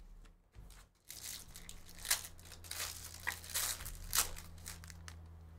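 Foil wrapper of a 2023 Panini Phoenix football card pack being torn open and crinkled by hand. It starts about a second in, with sharp rips and rustles, over a low steady hum.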